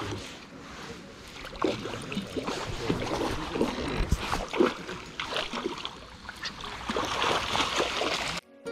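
Water splashing and sloshing as a trout thrashes in a landing net at the water's edge, with irregular knocks and rubbing close to the microphone. Guitar music cuts in right at the end.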